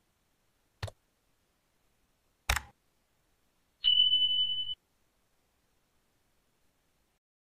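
Sound effects of a subscribe-button animation: a mouse click about a second in, a louder click a second and a half later, then a short steady high beep near the four-second mark.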